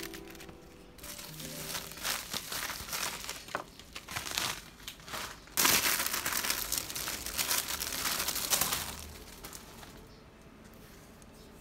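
Clear plastic packaging bag crinkling and rustling as it is handled and opened. It is loudest in a dense stretch about halfway through, then trails off.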